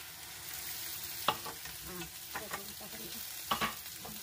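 Potato, carrot and onion chunks sizzling in a deep pan on a gas burner while two wooden spoons stir them, knocking against the pan a few times.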